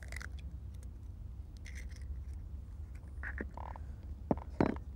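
A hen's egg being cracked and opened over an enamel mixing bowl: a few soft clicks and knocks of shell against the bowl, the sharpest two about four and a half seconds in, over a low steady rumble.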